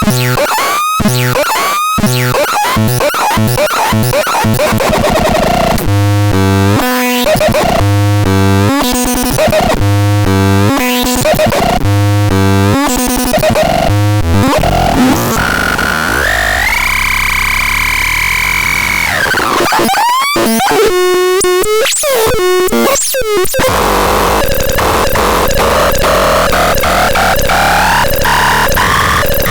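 TUTON A1 electronic sound unit playing a run of loud synthetic tone patterns, one after another. It goes from quick rising chirps to fast pulsing warbles, then a held tone that drops away, then more chirps and a harsher noisy stretch near the end.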